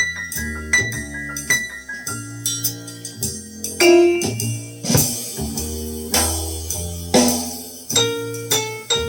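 Recorded small-group jazz with steady percussion strikes, a bass line and piano, played back through a hi-fi system's loudspeakers.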